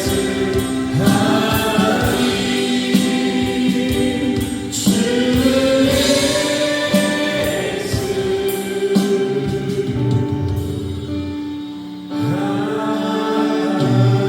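A choir singing with music, several voices holding sustained notes together; it drops away briefly about twelve seconds in, then the voices come back in.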